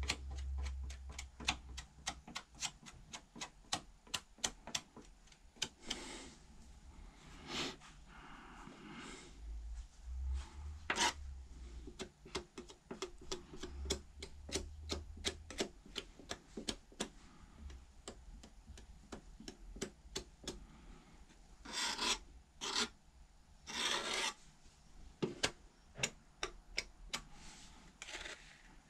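Hand rubbing and scraping on a car's rusty steel fender during bodywork repair: many small irregular clicks and ticks, with a few longer rasping strokes, the loudest of them bunched about three-quarters through.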